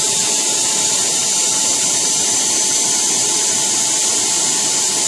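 Small jet turbine engine on a modified Ford 8N tractor running at steady speed: a loud, even rushing hiss with a high, steady whine and no piston-engine beat.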